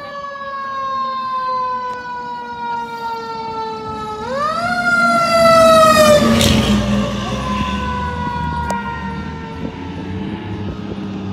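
Fire engine driving past with its siren wailing. The siren's pitch slides slowly down, winds up sharply about four seconds in, then falls again. The truck's engine rumble is loudest as it goes by about six seconds in.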